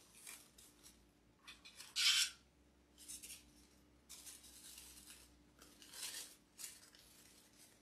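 Artificial silk flowers and leaves rustling and crinkling as a bundle of stems is handled and gathered together by hand, in several short bursts, the loudest about two seconds in.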